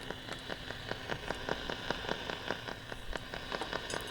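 AM radio receiver hissing with static, with rapid irregular crackling clicks and a faint steady whine underneath: a receiver used to listen for another radio's oscillator, picking up no beat.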